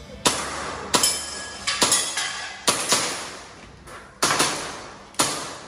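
Airsoft pistol fired in quick irregular strings, about ten shots, each sharp crack followed by a short ringing tail.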